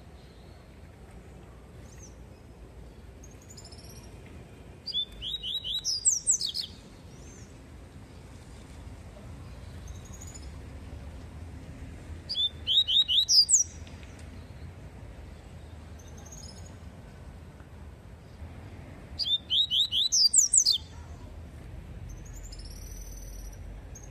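Male papa-capim (yellow-bellied seedeater) singing its 'tui-tui' song: three short bursts of rapid, rising whistled notes about seven seconds apart, with faint chirps in between. A low steady rumble runs beneath.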